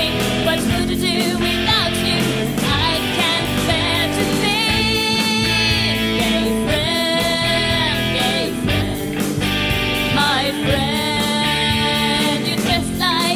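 A rock song playing: a singer holding long, wavering notes over guitar and a steady drum beat.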